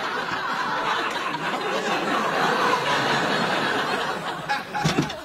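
Studio audience laughing long and loud, dying down near the end, where a few short knocks are heard.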